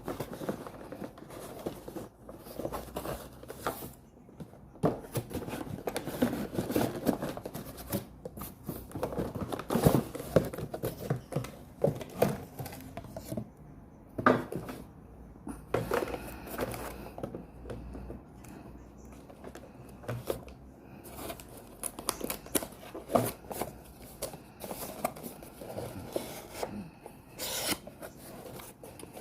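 A new coffee maker being unboxed: cardboard and plastic packaging rustling, tearing and scraping, with scattered clicks and knocks as parts are handled.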